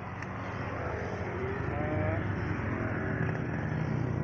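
A passing road vehicle's engine, getting steadily louder as it approaches.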